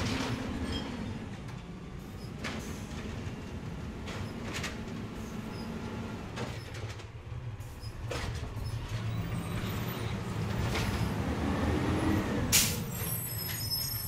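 Natural-gas-powered Peterbilt side-loader garbage truck running while stopped at the kerb: a steady low engine and hydraulic drone with metallic clanks every couple of seconds. The loudest bang comes near the end.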